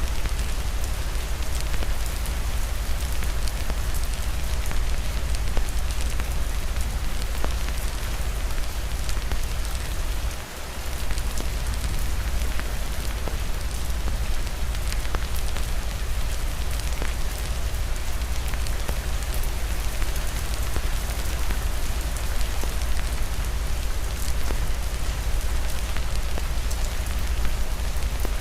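Steady heavy rain with a deep low rumble beneath it, and scattered sharp crackles from a wood fire in a fireplace. The sound dips briefly about a third of the way in.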